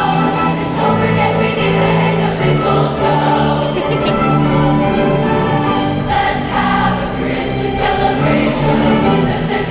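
A large choir singing a Christmas song with ensemble accompaniment, in sustained notes.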